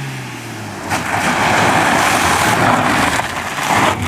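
Toyota Yaris sedan slowing and pulling onto gravel: its low engine note drops away, then the tyres crunch over the gravel for about three seconds and stop suddenly as the car halts.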